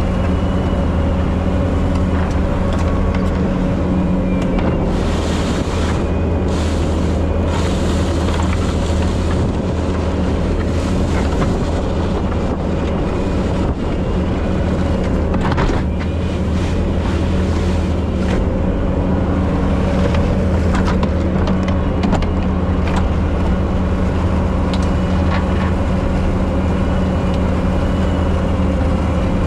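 Bobcat T770 track skid steer's diesel engine running steadily while grading shell. Bursts of harsher, hissing noise come in about a quarter of the way in and again near the middle.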